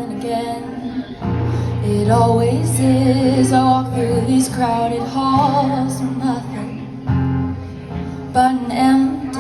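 A woman singing a slow song over acoustic guitar.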